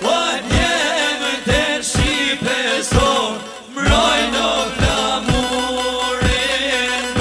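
Albanian folk song: male singing over a steady drum beat, about two strokes a second, with a brief drop in level about halfway through.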